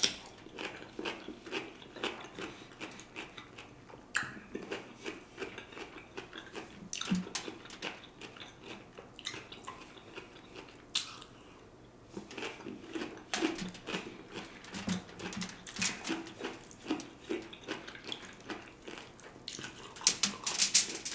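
Close-miked eating sounds of pressure-cooked smoked turkey legs: irregular wet smacks, chewing and sticky clicks of meat being handled and torn, with denser clusters of clicks near the start and the end.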